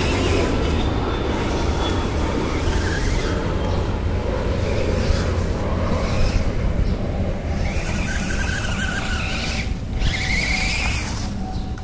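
Small electric motor of a 1:24-scale four-wheel-drive RC car whining, rising in pitch in short spurts as it speeds up, several times in the second half, over a steady low rumble.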